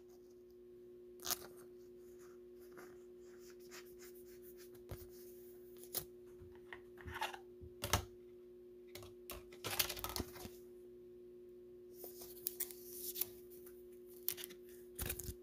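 Faint handling noise of trading cards and clear plastic card holders: scattered light clicks and scrapes, with short rustling stretches about two thirds and three quarters of the way through.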